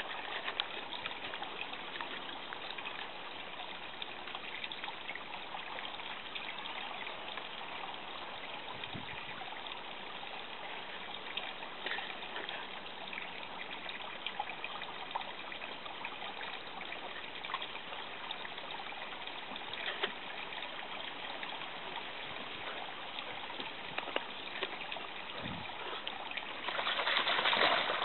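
Water trickling steadily along a shallow stone channel, with a louder stretch of splashing near the end as the dog moves in the water.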